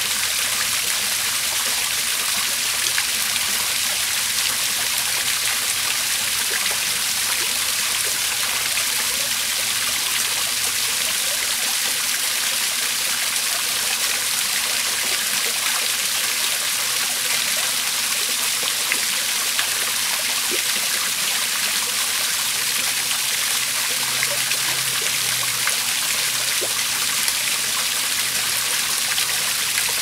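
Garden koi pond waterfall: a steady rush and splash of water pouring into the pond.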